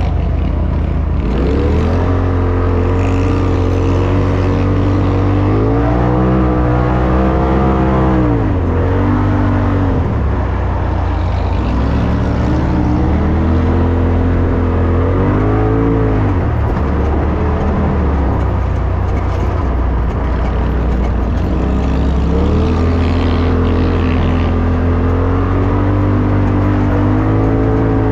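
Polaris RZR Turbo S side-by-side's turbocharged twin-cylinder engine running hard, its pitch climbing and falling several times as the throttle is opened and eased, heard from inside the cab.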